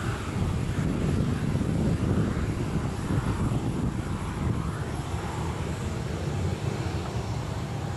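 Boeing 737-800's CFM56-7B turbofan engines at taxi power as the airliner taxis past: a steady low jet rumble with a faint high whine.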